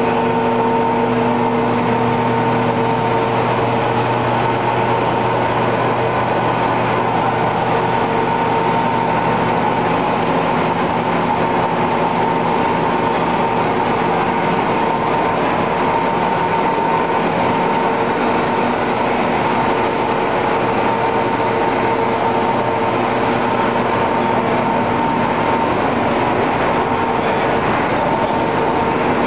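Snack-food extrusion processing line machinery running: a steady mechanical din with a constant hum.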